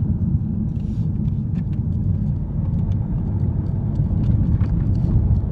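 Car driving along, its steady low road and engine rumble heard from inside the cabin, with scattered faint clicks.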